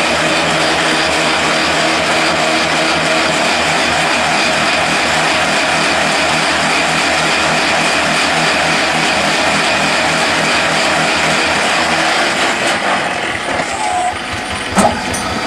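Mobile hydraulic concrete block-making machine running, its motors and hydraulic pump giving a steady loud mechanical hum with a fast rattle. It eases off about 13 seconds in, and a single sharp clunk comes just before the end.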